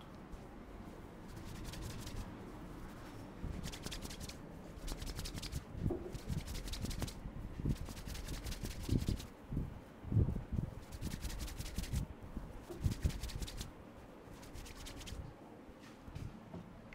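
Hands rubbing and scratching briskly through hair and over the scalp in a head massage, in bouts of fast rasping strokes, with a few soft low thuds partway through.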